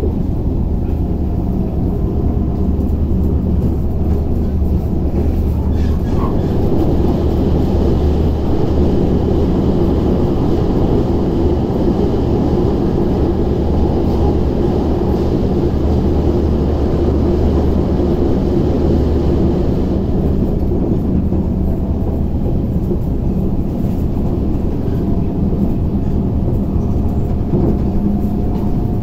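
An MTR SP1900 (IKK) electric multiple unit running at speed, heard from inside the passenger car: a steady rumble of wheels on rail and running gear.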